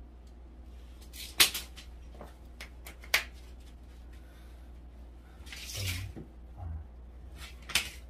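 A thin wood-grain board being scored and snapped by hand into small pieces: two loud sharp cracks about two seconds apart, lighter clicks, a rustle of handling, and another sharp crack near the end.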